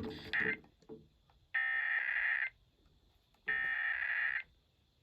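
Two Emergency Alert System SAME header data bursts, each a harsh electronic warble just under a second long, about two seconds apart: the digital code that opens an EAS alert, here for a Required Monthly Test.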